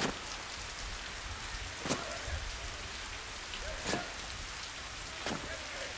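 Steady rain falling, an even hiss with a few sharper drop taps every second or two.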